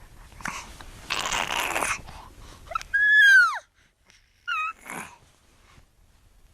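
A baby vocalizing: a breathy huff, then a loud high squeal that rises and falls about halfway through, and a short high squeak soon after.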